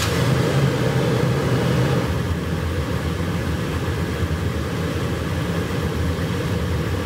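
Toyota 4Runner's 4.0-litre V6 idling steadily just after starting, a little louder for the first couple of seconds before settling.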